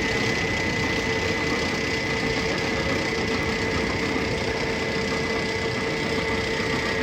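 A machine running steadily, a constant hum with a steady whine and no change in pitch.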